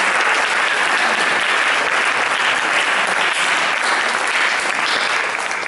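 Audience applauding, a steady dense clapping that holds at an even level.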